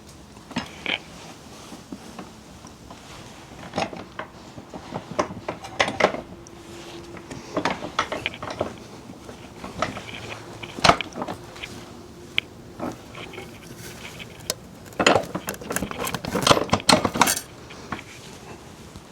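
Metal hand tools and parts clinking and knocking in irregular strokes, with a dense run of rattling clicks near the end, during work on a motorcycle's rear wheel.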